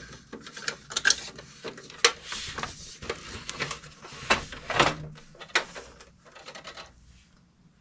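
Plastic housing of an HP LaserJet 1022 printer scraping and knocking against a wooden shelf as it is turned around by hand, with irregular clicks and short rubbing sounds.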